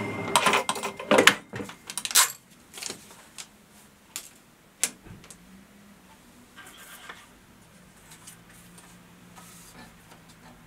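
Mechanical clicks and knocks from an NCR Class 6000 cash register being worked by hand: a dense clatter over the first two seconds, then only a few scattered single clicks.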